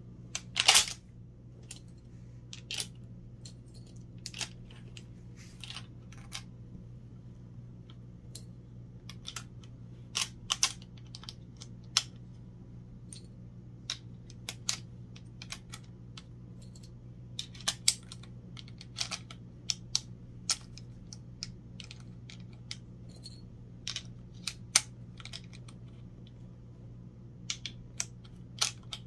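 Loose cartridges being pressed one by one into an M1 Garand's internal magazine without an en-bloc clip: irregular sharp metallic clicks of brass cases against each other and the steel receiver, with one louder clack about a second in. A steady low hum runs underneath.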